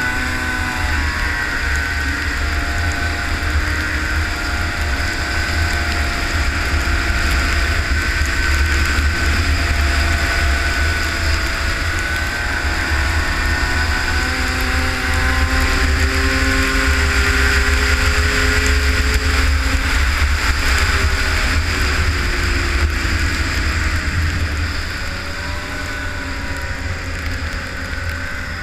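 Arctic Cat ZR 500 snowmobile's two-stroke engine running steadily under way. Its pitch drifts gently up and down with the throttle, and it eases off near the end. Heavy wind rumble on the microphone lies under it.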